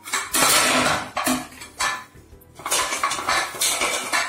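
Metal cookware clattering and scraping in three bursts: a long one, a short one just after, then another long one through the second half.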